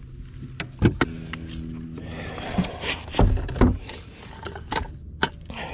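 Knocks, rattles and scrapes of handling on a boat deck as a just-landed largemouth bass is taken out of the landing net, over a steady low hum.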